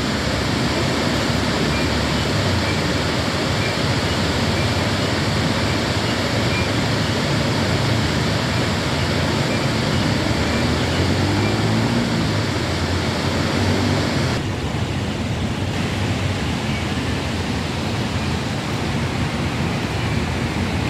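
Chania River waterfall rushing: a loud, steady roar of falling water. The sound dulls for about a second about two-thirds of the way through.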